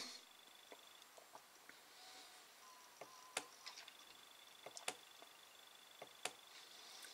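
Near silence broken by faint, scattered clicks and ticks as the glossy pages of a paper catalogue are handled and flipped over, most of them in the second half.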